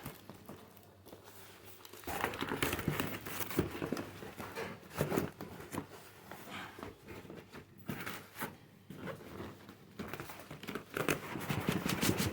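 Crinkling and rustling of packaging being handled, in irregular bursts with small clicks, loudest near the end.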